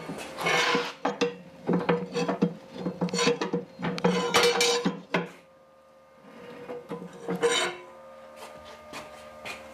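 Metal parts and tools being handled: a quick run of clinks, knocks and scrapes for about the first five seconds, then a lull and one more short scrape about seven and a half seconds in.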